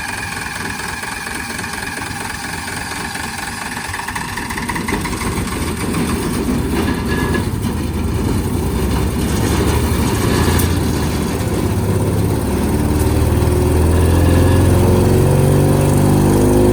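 Engine of a rented 5-inch wood chipper running. From about halfway through it speeds up, rising steadily in pitch and getting louder as it comes up to working speed.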